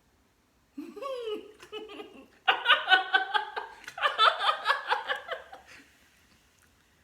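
Laughter breaks out about a second in, swelling into loud, pulsing peals of hearty laughter before dying away near the end.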